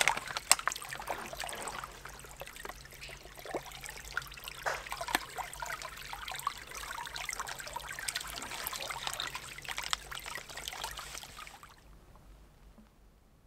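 Small mountain creek trickling and splashing over rocks while a water container is held in the flow to fill it, with small clicks and splashes from the handling. The water sound cuts off suddenly about a second and a half before the end.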